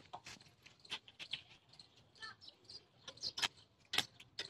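Scattered light metallic clicks and taps as the chain-mesh bumper frame and a stick-welding electrode holder are handled and set against the joint, with a few sharper clicks near the end.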